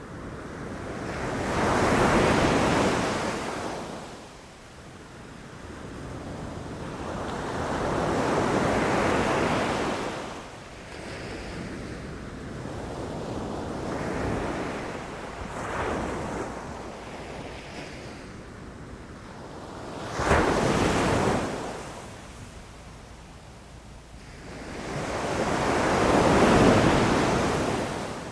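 Ocean surf: waves breaking and washing up the shore in swells that rise and fade every five to seven seconds, one breaking with a sudden crash about twenty seconds in.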